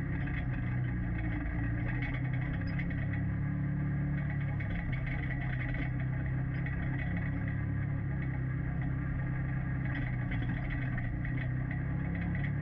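Engine of a four-seat off-road UTV running steadily at constant revs.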